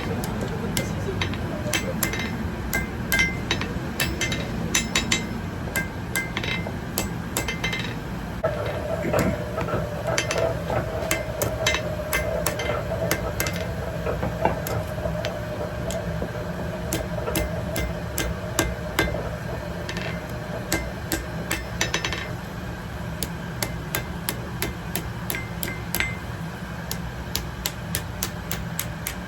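Blacksmith's hammer striking metal on an anvil in irregular runs of sharp blows, over a steady low hum. A steady mid-pitched tone holds through the middle stretch.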